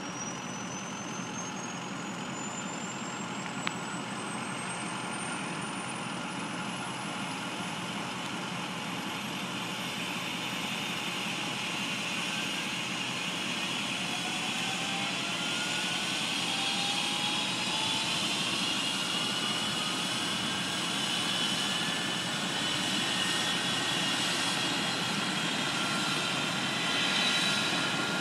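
Medical helicopter's turbine engines running up on the helipad before lift-off: a high whine rises steadily in pitch through the first ten seconds or so, and the engine and rotor noise grows gradually louder.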